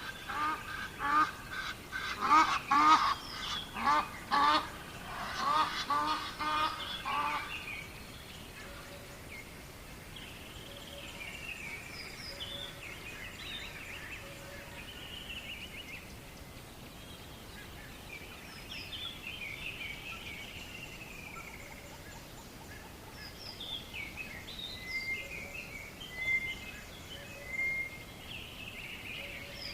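Birds calling outdoors: a loud run of repeated harsh, pitched calls for the first seven seconds or so, then quieter scattered chirps and whistles over a faint steady hiss.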